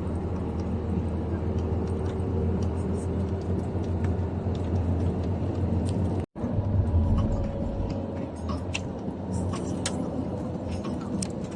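Steady low rumble of a moving motor vehicle, engine hum and running noise, with the sound cutting out completely for an instant about six seconds in and scattered light clicks or rattles in the second half.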